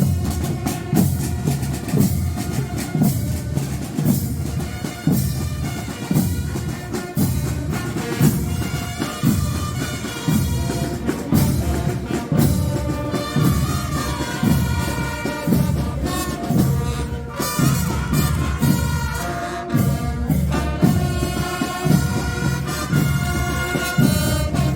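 Fanfare band playing: trumpets and trombones sound the melody over a steady marching drumbeat of about two strokes a second.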